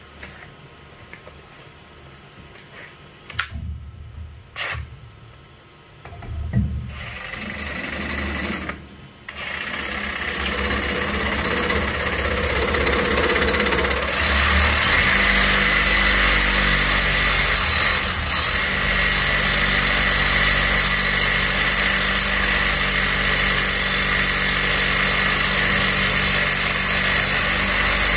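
Reciprocating saw with a carbide metal-cutting blade cutting into a rusted black-iron pipe fitting. A few knocks come first, then the saw starts about seven seconds in, stops briefly, and from about ten seconds in runs steadily as the blade cuts.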